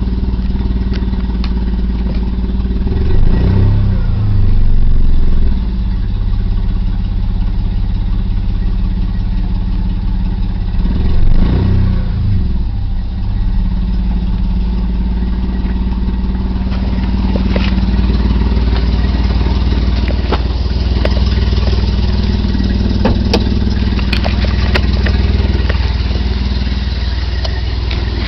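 BMW M20B20 2.0-litre inline-six running cold with a very rough idle, revved briefly twice, at about three seconds in and again around eleven seconds. The rough running and hard starting come from a failing fuel pump.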